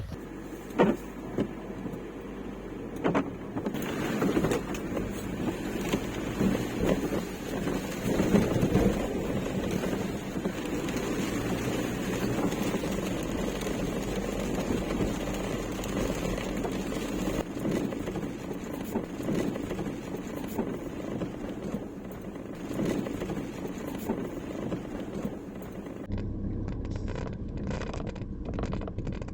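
Converted Ford Transit camper van driving, with steady road and engine noise heard inside the cab and a few knocks and clicks. The sound changes character near the end.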